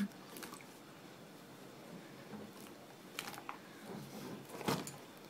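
Faint handling noise of a plastic saline bag being held and squeezed as it drains through a double-ended spike into a glass Cyanokit vial, with a few soft clicks and crinkles.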